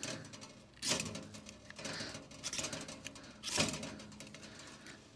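Two sharp scraping strikes, about a second in and again at about three and a half seconds, with small clicks and rustles between, as cotton-wool tinder in a titanium tent stove is lit by hand.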